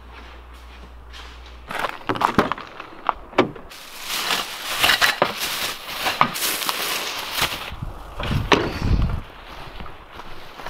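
Plastic bags crinkling and gear being handled, with irregular clicks and knocks, and a heavy thud about eight and a half seconds in.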